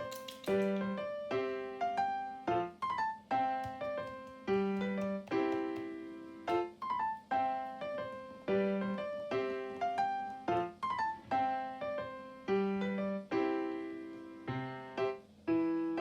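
Background piano music: a light melody of struck notes, with the same phrase repeating every few seconds.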